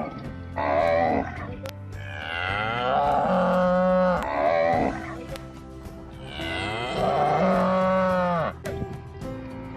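Cows mooing: two long, drawn-out moos of about three seconds each, with shorter moos between and around them.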